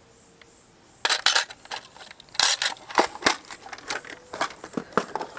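Plastic tackle box and hook case being handled: after a quiet second, a run of sharp clicks, knocks and rattles as the hook case is closed and put away and the gear inside the box is moved about.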